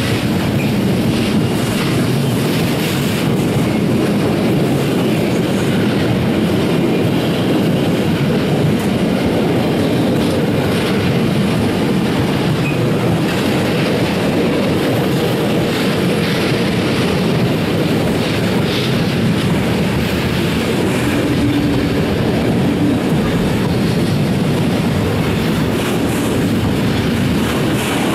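Freight train wagons, car transporters and covered sliding-wall wagons, rolling steadily past: a continuous rumble of steel wheels on the rails with clickety-clack over the rail joints.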